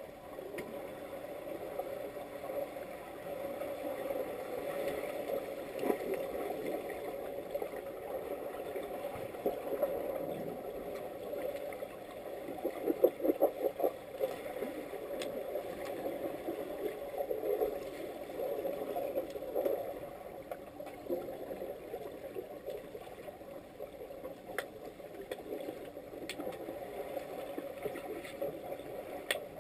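Muffled churning water heard underwater as swimmers in fins kick and stir up bubbles, with a cluster of sharp knocks about thirteen seconds in.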